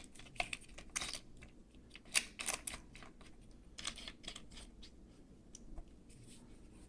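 Light, irregular clicks and taps of a Luth-AR MBA-3 carbine buttstock's parts being handled and tightened. They are busiest in the first four seconds and thin out after that.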